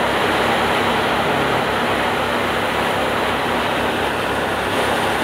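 Paddy thresher running at speed while threshing: a steady, loud mechanical din with a fast low throb underneath.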